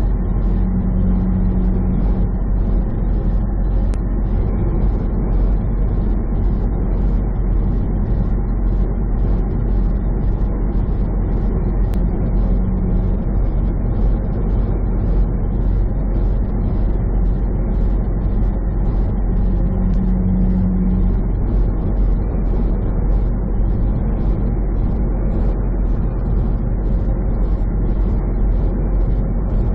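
Semi truck cruising at highway speed, heard from inside the cab: steady engine and road noise, with a faint light tick nearly twice a second.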